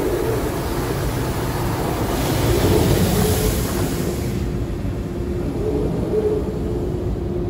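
Automatic car wash heard from inside the car: water spray hitting the windshield and body with a steady rumble and a thin steady hum underneath. The spray hiss swells louder from about two seconds in and eases off again a couple of seconds later.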